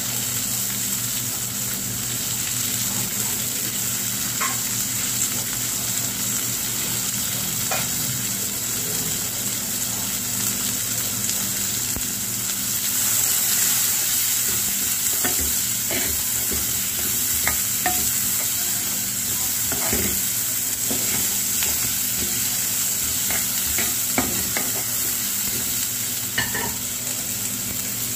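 Chopped onions and whole spices sizzling in hot oil in a deep pan, a steady frying hiss as the onions are lightly sautéed. A steel ladle stirs and scrapes the pan, giving scattered clicks that come more often in the second half.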